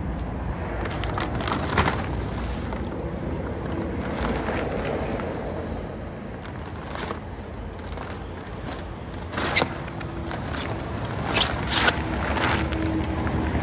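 A plastic shipping cover being pulled and bunched off a new snowmobile, crinkling and rustling in short sharp bursts, the loudest about two thirds of the way through, over a steady low background rumble.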